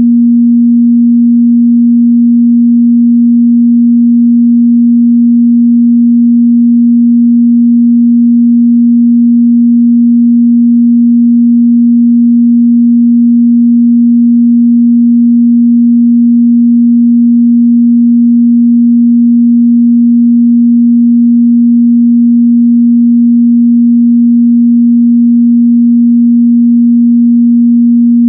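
A steady, loud 237 Hz sine-wave test tone, one pure pitch held without change.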